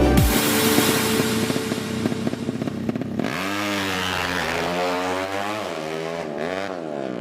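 Racing motorcycle engine: loud and rough for about the first three seconds, then revved in several sharp rises and drops of pitch.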